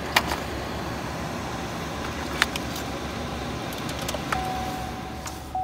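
Clicks and handling knocks inside a pickup truck's cab over a steady running noise. About four seconds in, a steady electronic tone starts and holds.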